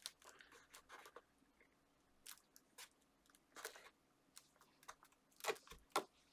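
Card and paper being handled and pressed into place: scattered soft crinkles and taps, with two sharper taps near the end.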